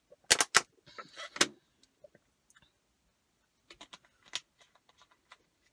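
Thin plastic water bottle crackling with a few sharp clicks as it is tipped up for a drink, in the first second and a half. About four seconds in come quieter plastic clicks as the screw cap is turned back on.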